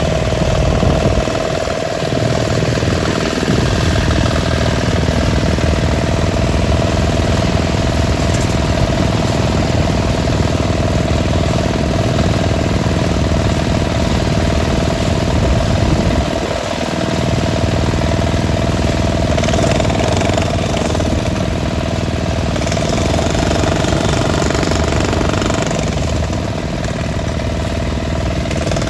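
Handheld demolition hammer breaking up sidewalk brick paving: rapid steady hammering, pausing briefly about two seconds in and again about seventeen seconds in. Under it, a portable generator's engine runs steadily, with motorbikes passing.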